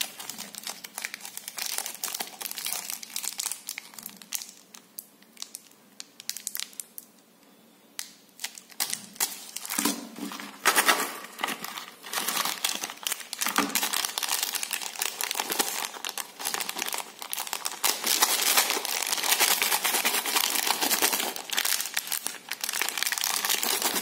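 Plastic chocolate-bar wrappers and a small cardboard candy box crinkling and rustling as they are handled, with many sharp crackles; quieter for a few seconds near the start, then dense crinkling through the second half.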